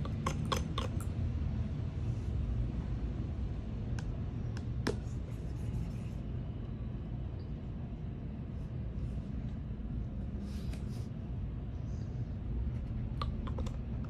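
A steady low rumble, with a few light clicks and taps of toy pieces being handled: a quick cluster about half a second in, single clicks about four and five seconds in, and a couple more near the end.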